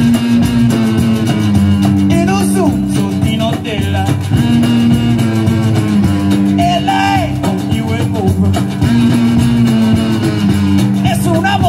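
A live band playing: electric guitar, drums and upright bass, with a harmonica played through a vocal microphone cupped in the player's hands.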